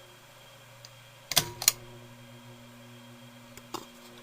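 Ceiling fan pull-chain switch clicking twice about a second in, with another click near the end, over the steady electrical hum of a 1988 Canarm ceiling fan motor. The hum grows stronger after the clicks. The owner cannot explain the excessive hum and suspects the switch; the capacitor runs very warm.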